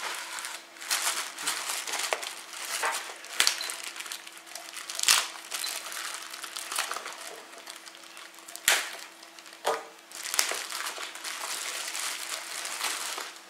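Clear plastic bag crinkling and rustling as hands work it open, with a few sharp crackles along the way.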